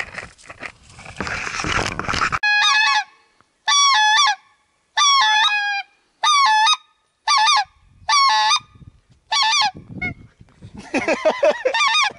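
Brush rustling for the first two seconds or so, then a goose call blown by a hunter: seven loud, separate honks, each breaking between two notes, with short gaps between them. Near the end comes a quicker run of lower, rougher calls.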